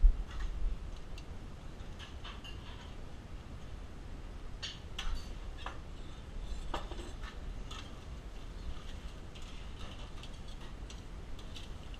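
Irregular clicks and clinks of metal tongs and steel pans being handled on a steel griddle and counter. There is a low thump at the very start, then scattered light knocks over a faint low rumble.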